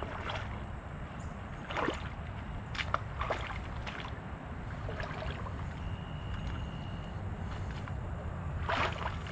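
A person moving about outdoors: scattered scuffs and rustles, a few sharp ones about two, three, four and near nine seconds in, over a steady low rumble.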